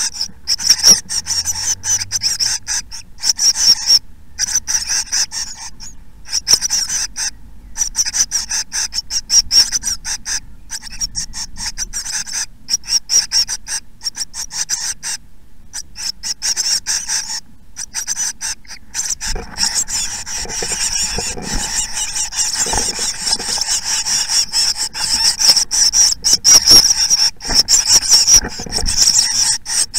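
Nest-box tit chicks begging: a constant high-pitched, rapid chittering of many overlapping calls. It grows louder and fuller from about twenty seconds in, as the chicks gape, with rustling of the nest material beneath it.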